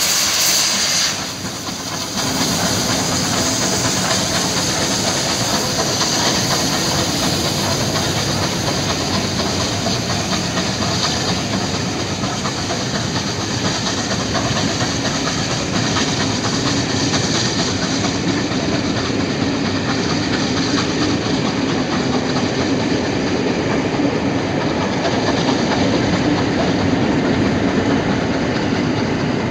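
Steam-hauled passenger train going by: a Bulleid light Pacific locomotive and its coaches, wheels clicking over the rail joints, with hissing steam. The sound is steady throughout, with a short drop in level about a second in.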